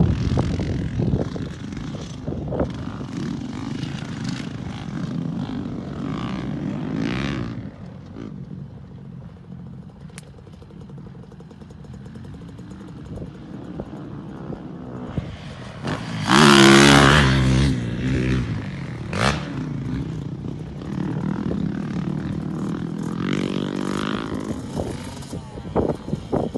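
Dirt bikes running around a motocross track, their engines rising and falling as the riders work the throttle. About 16 s in, one bike passes close and loud for about two seconds.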